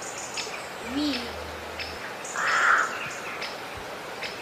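Small birds chirping repeatedly in the background, with short high chirps coming every fraction of a second.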